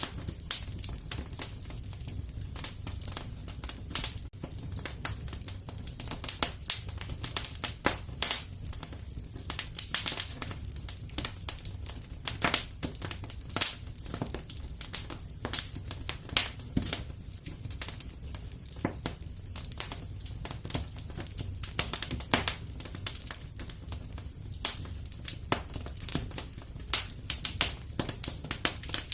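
Wood fire crackling and popping in a fireplace: many irregular sharp snaps over a steady low rumble of burning.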